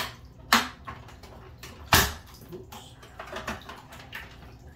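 Plastic lid latches on an Aquatop CF500UV canister filter being snapped shut: a sharp click about half a second in and a louder knock about two seconds in, then softer plastic knocking.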